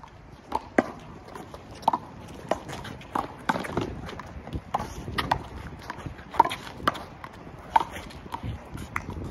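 A handball rally: the small rubber ball smacked by open hands and striking the concrete wall and court, giving sharp slaps at irregular intervals, about one every half second to second.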